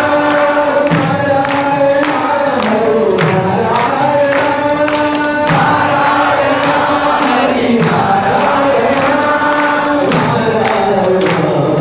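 Devotional chanting led over a microphone, with many voices singing the held, sliding lines together and a steady beat about twice a second.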